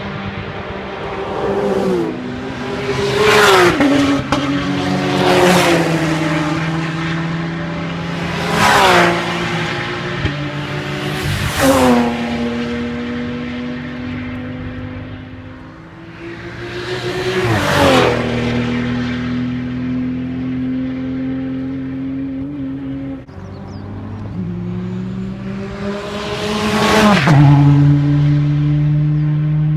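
Racing cars passing at speed one after another, about six close passes, each engine note dropping sharply in pitch as the car goes by, with the engines of other cars running on in between.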